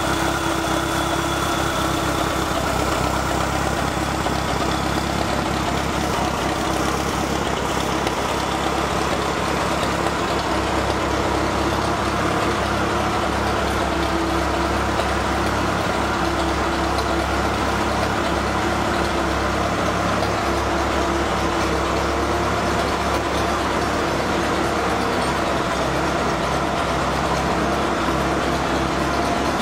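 1961 Farmall 504 tractor engine idling steadily, warming up after a cold start.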